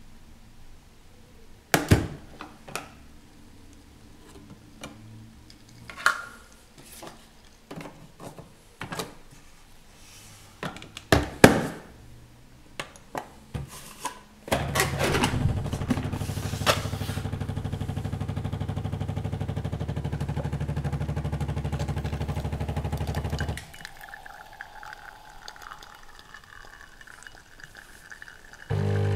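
Scattered clicks and knocks as the Bosch Tassimo's lid is pressed shut. About halfway in, the machine's pump starts a steady hum, runs for about nine seconds while it brews the Oreo drink into the glass, then stops suddenly; a much quieter hiss follows, and music begins at the very end.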